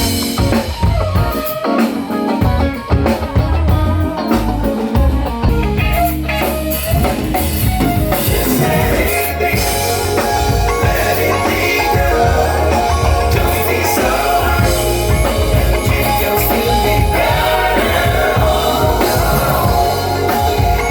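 Live band playing a rock song at a sound check: drum kit and electric guitar with a voice singing, loud and continuous.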